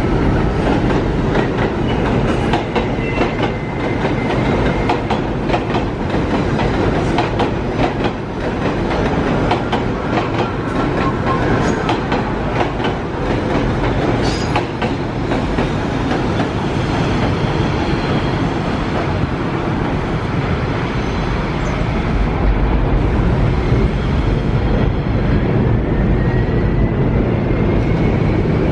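New York City subway train running on the tracks: a steady heavy rumble with wheels clicking over rail joints, and a faint rising whine near the end.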